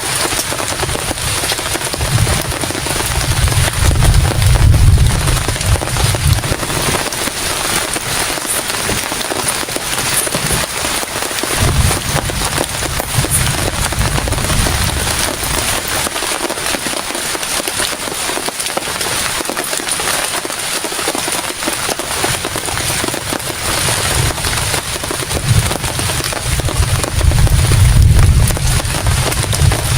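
Heavy rain falling hard, a dense patter of drops hitting a surface. A low rumble swells up three times, loudest about four seconds in and near the end.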